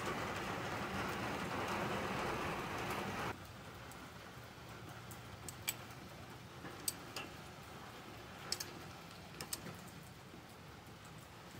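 A steady hissing noise for about three seconds that cuts off suddenly, followed by a much quieter stretch with a scattering of faint sharp clicks and taps.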